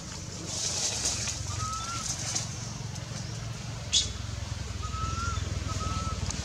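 Three short, thin, slightly rising whistle-like animal calls over a steady low hum and a faint high hiss, with one sharp click about four seconds in.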